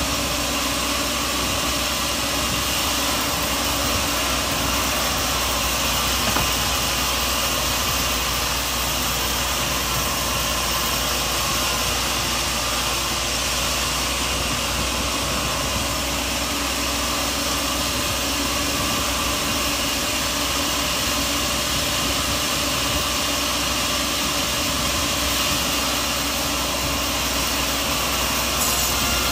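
Sawmill machinery running steadily: an even machine drone with a wide hiss, no pauses or changes.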